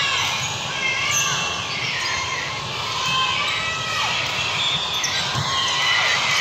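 Volleyball gym din: sneakers squeaking on the hardwood court, with ball thumps and players and spectators calling out in the background.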